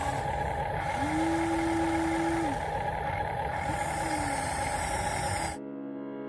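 Radio-controlled construction model machinery running: a steady motor whine with a lower tone that rises, holds and drops back twice, as a motor speeds up and slows under control. Near the end it cuts off suddenly and music begins.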